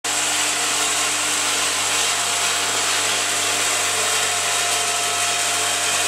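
XL-10B rotary vial filling, stoppering and capping machine running: a steady mechanical whir with a constant low hum and a high hiss.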